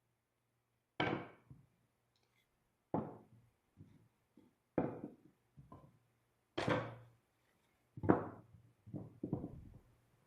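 A series of sharp wooden knocks and thunks, about a dozen, the loudest coming roughly every two seconds with smaller taps between: wood being struck or set down on wood while the bench is being worked.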